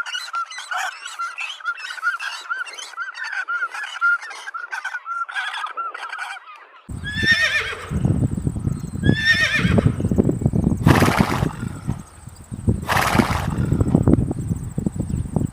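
Animal calls from two different clips: rapid, closely spaced high-pitched calls for about the first seven seconds, then an abrupt change to louder, fuller calls that recur about every two seconds, with a faint steady high tone behind them.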